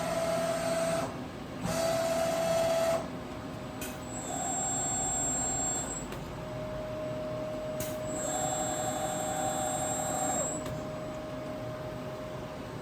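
Milltronics RH20 CNC milling machine moving in four short runs of one to two seconds, each with a steady motor whine, and a steady hum that carries on from about halfway.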